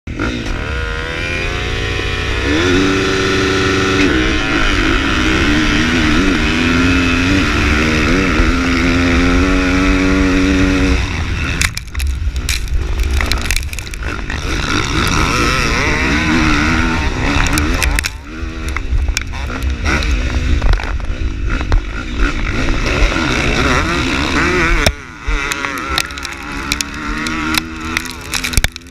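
450cc four-stroke motocross bike engine run hard, held at high revs for about eleven seconds with its pitch climbing and falling through the gears. About eleven and a half seconds in the throttle is chopped, and then it goes on and off the throttle over and over, pitch rising and falling.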